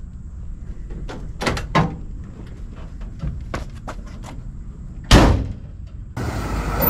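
Truck cab door and handles being worked as someone climbs out of a Ford C-series cab: a handful of sharp clicks and knocks, then one loud door slam about five seconds in.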